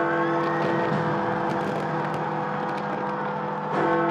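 Big Ben, the Great Bell of the Palace of Westminster, striking midnight: one stroke rings on and slowly fades, and the next stroke comes near the end, about four seconds later.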